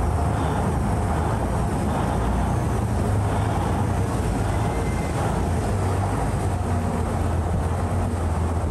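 A Saen Saep canal passenger boat's engine running steadily with a low hum while the boat is under way, over a constant wash of noise.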